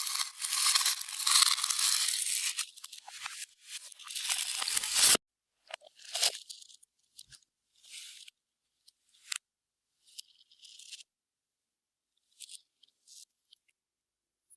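Clear slime mixed with beads being squeezed and worked by hand, crackling and crunching densely for about five seconds, then in short scattered pops and crackles.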